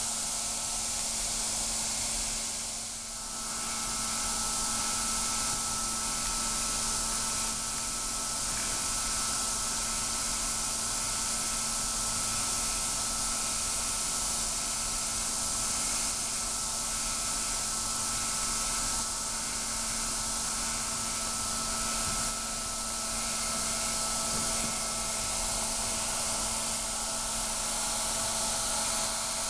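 Steady hiss of flowing gas, with a faint steady hum beneath it; the hiss dips briefly about three seconds in.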